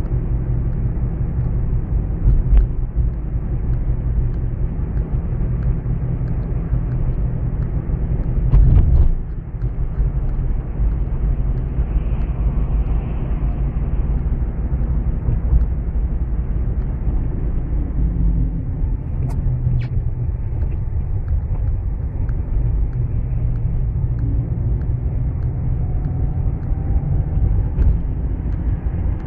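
Steady low rumble of a car being driven on city streets, engine and tyre noise heard from on board. A louder thump comes about nine seconds in.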